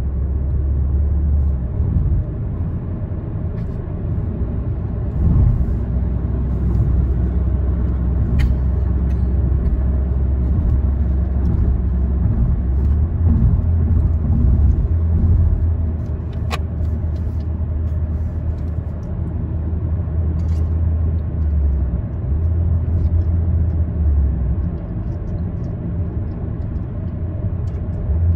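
Car driving on a city road heard from inside the cabin: a steady low rumble of tyre and engine noise, with two brief faint ticks partway through.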